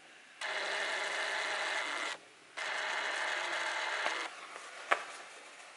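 Ground firework going off: two steady bursts of hissing, each about a second and a half long with a short break between, then a single sharp bang about five seconds in.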